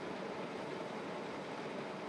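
Steady street-traffic noise while the car waits in a queue at a red light: an even hum of idling car engines with no single event standing out.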